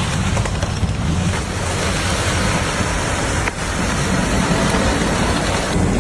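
Heavy truck engine running steadily under a rushing, wind-like noise, with a brief break about three and a half seconds in.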